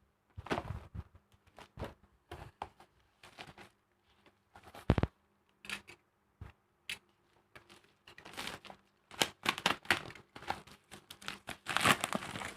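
Toy packaging being handled and opened by hand: irregular crinkles, tears and clicks of plastic and cardboard, coming thicker and faster in the last few seconds.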